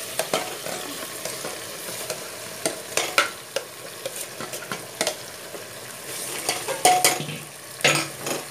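A spoon scraping fried mutton masala out of a steel pan into a pressure cooker, with repeated metal-on-metal scrapes, knocks and clinks, the loudest a few seconds in and again near the end, over a steady sizzle of frying.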